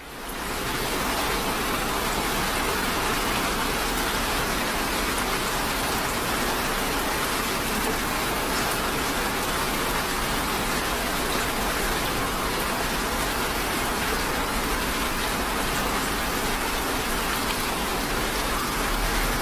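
Steady rain falling, a dense even patter without let-up, fading in at the very start.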